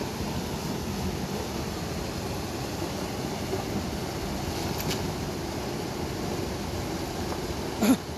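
Steady rushing of a small mountain river. A short sharp click comes near the end.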